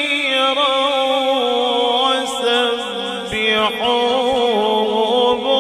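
Solo male qari chanting a Quran recitation (tilawat) in the drawn-out melodic style, holding long notes that waver and turn in ornaments. The voice is amplified through a microphone.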